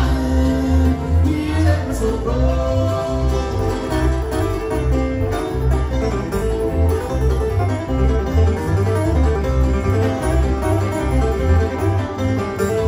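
Live bluegrass band playing an up-tempo train song, with banjo, acoustic guitar and upright bass over a steady pulsing bass line.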